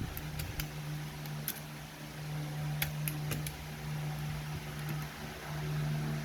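Scattered sharp clicks from a mechanical keyboard being worked on, in two small clusters, over a steady low hum.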